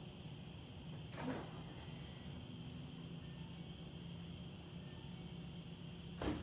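Quiet room tone: a steady high-pitched whine over a low hum, with two faint knocks, one about a second in and a slightly louder one near the end.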